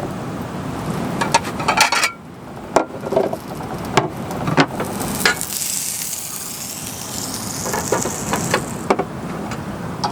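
Steady rain, with a series of sharp knocks and clinks from something being handled, and a hiss that swells about halfway through.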